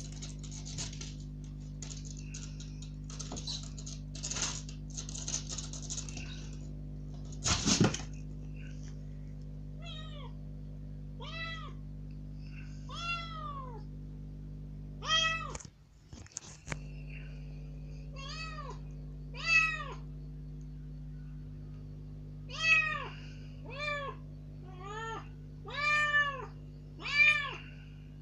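A young rescued kitten's claws scratching and rustling on a lace curtain as it climbs, with one loud thump about eight seconds in. From about ten seconds in it gives about a dozen loud meows, each rising then falling, one every second or so: piteous demand cries, very loud for a kitten, to be let outside.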